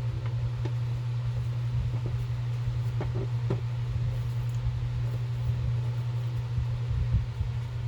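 Steady low hum with a rumble beneath it, and a few faint light clicks about three seconds in.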